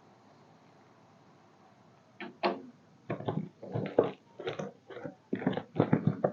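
Packaging of a small robot vacuum being handled and opened: after a quiet start, a quick run of irregular rustles, scrapes and knocks begins about two seconds in.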